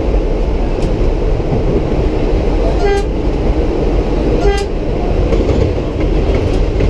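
An R33WF subway train running along the tracks with a steady rumble. A horn gives two short toots, about three seconds in and again a second and a half later.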